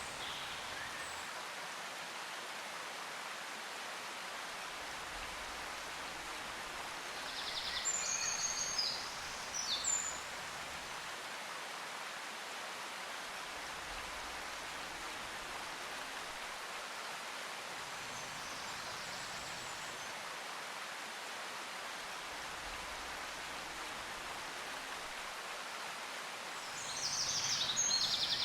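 Steady hiss of background noise, with two short spells of high chirping: one about eight seconds in and one starting near the end.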